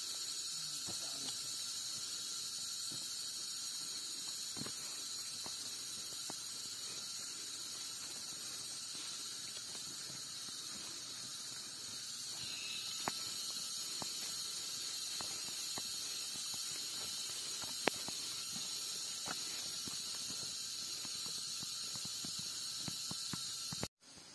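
A steady, shrill chorus of forest insects, a continuous high-pitched drone that rises slightly in pitch and level about halfway through, with scattered faint ticks and taps.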